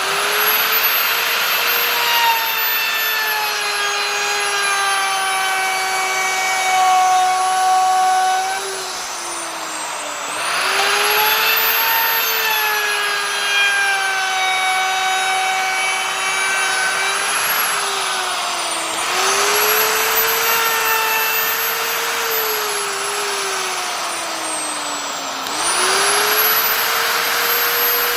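Electric wood router running at high speed while cutting wood, its motor whine sagging slowly in pitch and then jumping back up three times, each jump with a surge of cutting hiss.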